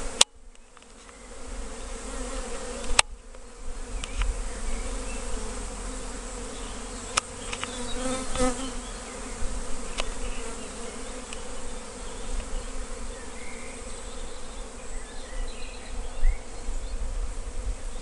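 Steady buzzing of a swarm of Carniolan honeybees walking up into a new hive. Two sharp clicks stand out, one at the very start and one about three seconds in.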